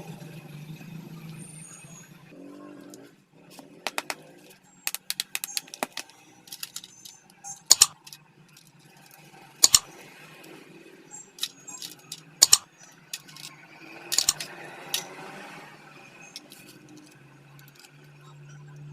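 Scattered sharp clicks and metallic knocks of tools and parts being handled during a cutter machine repair, over a faint low steady hum.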